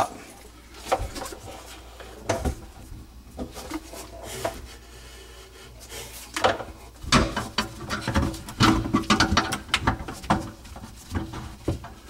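Irregular metal clinks, knocks and scrapes of a garbage disposal being hung onto its sink mounting ring, with a busy run of knocks from about six and a half to ten seconds.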